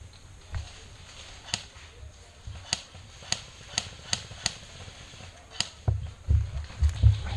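Airsoft gunfire: about seven sharp single snaps, spaced irregularly over a few seconds. Low thuds of camera and microphone handling follow near the end.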